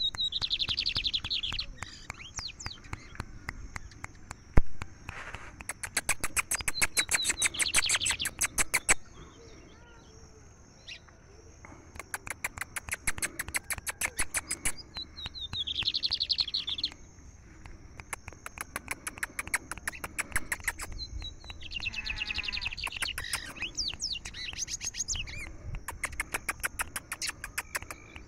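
Caged lined seedeater (bigodinho) singing repeated phrases of fast, dry clicking trills mixed with high whistled notes, with a pause of a couple of seconds near the middle. One sharp knock about four and a half seconds in.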